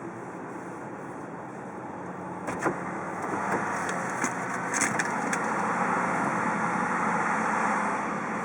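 Car engine and road noise that swells from about two and a half seconds in and stays louder, with a few sharp clicks over the next few seconds.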